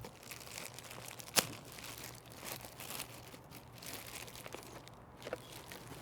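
Plastic wrapping crinkling and tearing as it is pulled off a robot vacuum, with irregular crackles and one sharp snap about a second and a half in.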